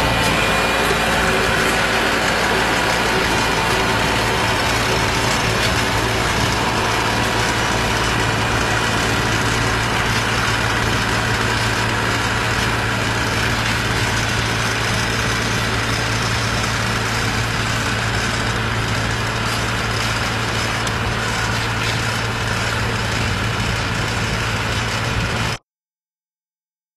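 Tractor engine running steadily while driving a power-driven disc plough, cutting off abruptly near the end.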